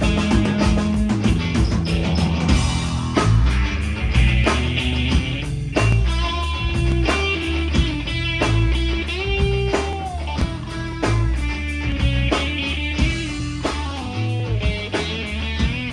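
Rock band playing a song: guitar over bass and a regular drum beat, the guitar bending notes in places.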